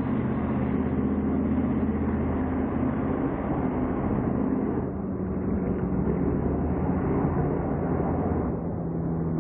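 Drag car engine idling steadily at low revs, an even low rumble whose pitch shifts slightly near the end.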